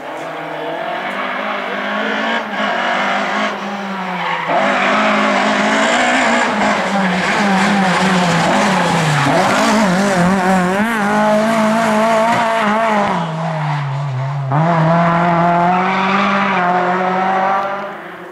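Rally car engine running hard at high revs, its pitch rising and wavering up and down as the throttle is worked, dropping sharply about three quarters of the way through and climbing again, then fading near the end.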